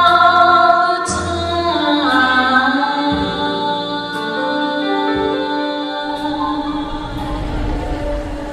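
A woman singing long held notes that slide in pitch. Near the end, a low rumble of thunder and rain fades in under the voice.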